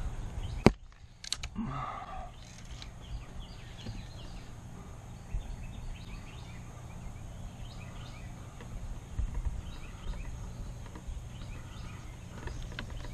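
A .22 Crosman GuideHawk air rifle fires a single sharp shot about half a second in, followed by a couple of fainter clicks. After that, faint bird chirps sound over steady outdoor background noise.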